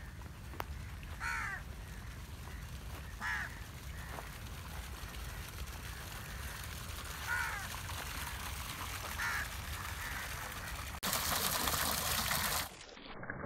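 A crow cawing four times, single harsh calls a couple of seconds apart, over a steady low rumble. Near the end, water gushing from a pipe outlet and splashing into a pond for nearly two seconds, the loudest sound.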